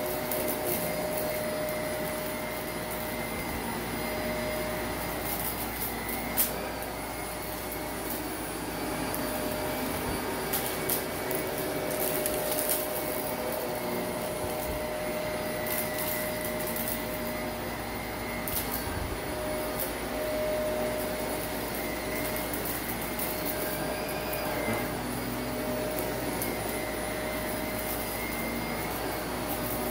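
Shark Navigator upright vacuum running steadily over a shag rug, its motor holding one even tone. Scattered sharp clicks and crunches come through as light hidden debris in the pile is sucked up, the loudest about six seconds in.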